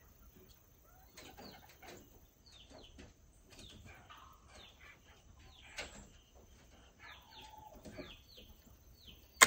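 Small birds chirping quietly in short, falling calls, with a faint steady high tone behind them. Right at the end the .36 calibre flintlock rifle fires with a sudden loud blast.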